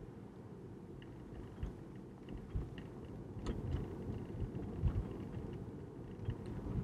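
Low road and tyre rumble inside the cabin of a Tesla driving on town streets, with a few brief low thumps and a light click about halfway through.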